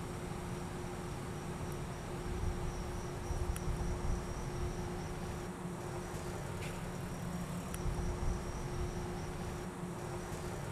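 Steady night-time outdoor ambience: a constant high, thin trill over a low, even hum, with a few faint clicks.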